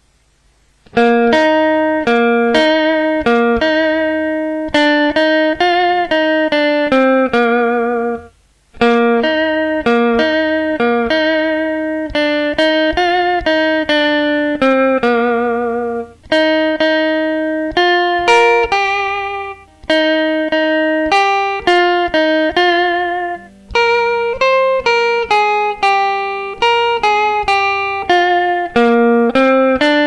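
Electric guitar playing a single-note solo melody in E-flat, the notes shaken with tremolo-arm (whammy bar) vibrato. The notes begin about a second in, with a brief break about eight seconds in.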